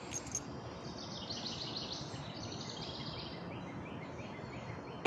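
A bird singing a fast run of short, repeated high notes, several a second, that fades out, over a steady outdoor background hiss.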